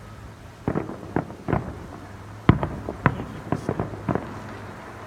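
Fireworks going off: about ten sharp bangs at uneven intervals, the loudest about two and a half seconds in, with a quick run of bangs near the end.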